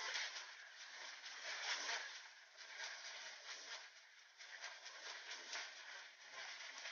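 Irregular rubbing and scratching on drawing paper: graphite smudged with a fingertip and drawn with a mechanical pencil.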